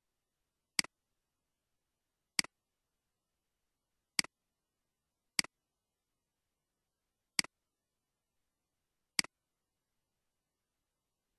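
Computer mouse button clicked six times at uneven intervals. Each is a sharp click followed at once by a softer one, the press and release of the button.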